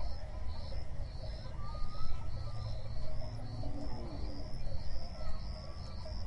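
Insects chirping in quick repeated pulses over a steady low rumble, with a few faint short calls.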